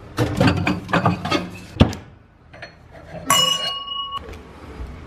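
Glass rattling and clinking as a fridge stocked with champagne bottles is opened, ending in one sharp knock about two seconds in. Then a wine glass clinks and rings for just under a second as it is taken from a cabinet.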